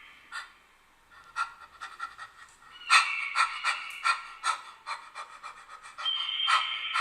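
A person panting rapidly in short rhythmic breaths. A steady high tone sits behind it from about three seconds in.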